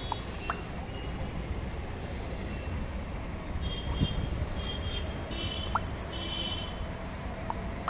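Outdoor background: a steady low rumble, with a few short sharp ticks and a cluster of short high-pitched chirps from about halfway through.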